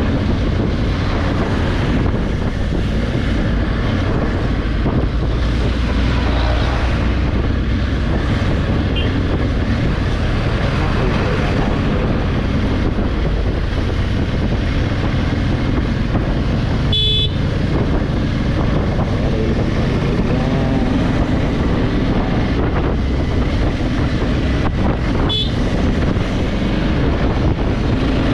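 Honda Africa Twin parallel-twin motorcycle engine running under way, heard from an onboard camera with steady wind noise across the microphone. A short horn beep sounds partway through, and a fainter one follows several seconds later.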